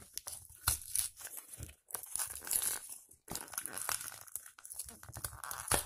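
Paper wrapping of a small gift package being torn open by hand: irregular crinkling and rustling with several sharp rips.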